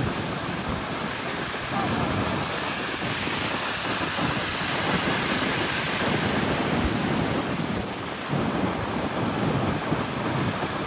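Atlantic Ocean surf: waves breaking and washing ashore, a loud steady rush that swells from about two seconds in and eases briefly about eight seconds in. Wind rumbles on the microphone.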